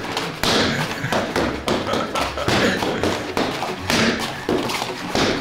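Punches and kicks landing on a large padded foam kick shield: a rapid run of dull thumps and slaps.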